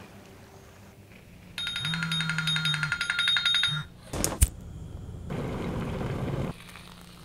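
An electronic alarm ringing, a rapid repeating high beep-tone for about two seconds, then stopping. A sharp knock follows, then a steady rushing noise for about a second and a half.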